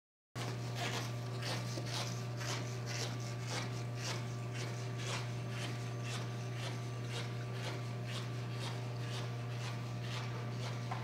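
Footsteps on a hard hallway floor, about two steps a second, over a steady low hum; the sound cuts in abruptly just after the start.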